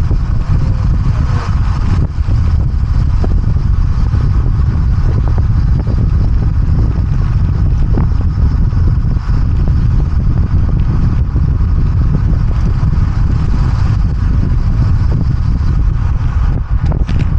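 Wind buffeting on the microphone: a loud, steady, flickering low rumble with no break.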